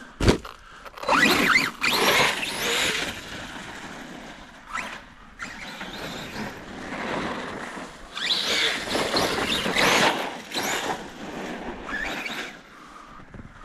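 Electric Arrma Kraton RC monster truck driving in soft, wet snow: its motor and drivetrain give a whine that rises and falls in pitch as it throttles up and back off, in two main bursts, about a second in and again around eight seconds in.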